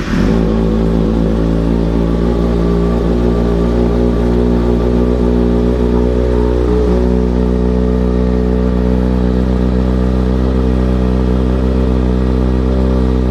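2011 Kawasaki ZX-6R's inline-four engine idling steadily through a newly fitted, not yet broken-in Two Brothers M2 slip-on exhaust, loud, just after catching on its first start.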